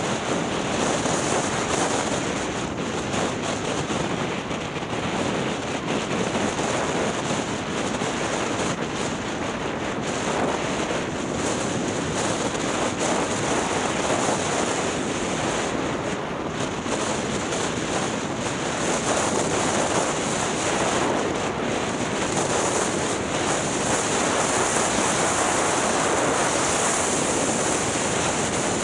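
Steady rushing hiss of skis running over groomed piste snow, mixed with wind buffeting the camera microphone.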